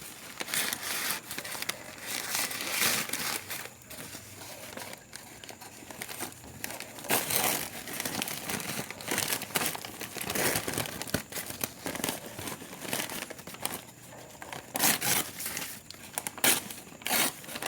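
Packing material around shipped live plants being crinkled, crumpled and torn open by hand in irregular bursts, loudest about halfway through and again near the end.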